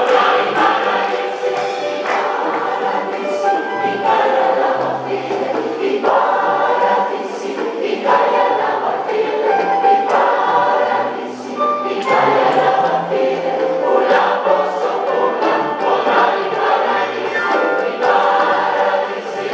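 Large choir of many voices singing an African-style song together, the sung chords shifting every second or so.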